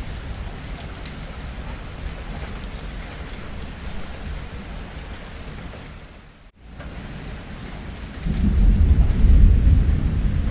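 Steady rain falling during a thunderstorm, with low thunder rumbling under it. The sound drops out for a moment about two-thirds of the way in, then a louder roll of thunder comes in near the end.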